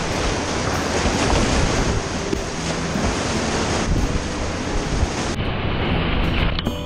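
Rushing whitewater of a river rapid churning and splashing over the bow of a whitewater kayak as it punches through the waves, with wind buffeting the microphone. About five seconds in the sound turns duller, losing its hiss.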